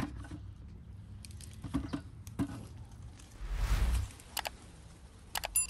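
Firm quinces being set into an enamel bucket: a few dull knocks of fruit against fruit and the bucket, then a rustling whoosh just past the middle and a short bright chime near the end.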